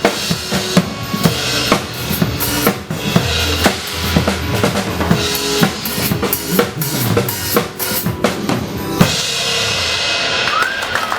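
Live band music with a drum kit playing the instrumental close of a song, stopping about nine seconds in. Applause follows, with a short rising-then-falling whistle near the end.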